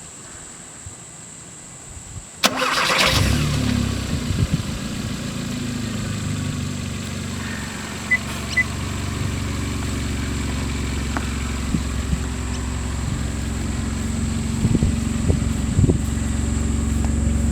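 Kia Cerato's engine started by an aftermarket remote start: the starter cranks briefly about two and a half seconds in, the engine catches, and it settles into a steady idle.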